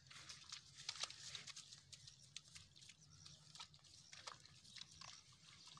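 Near silence: faint, scattered short clicks and rustles over a low, steady hum.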